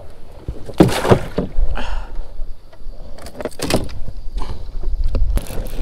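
Knocks and clatter from a fishing boat's deck hatch, likely the livewell lid, being unlatched and handled: a cluster of knocks about a second in, more around three and a half seconds in and a short one near the end. A steady low rumble of wind on the microphone runs underneath.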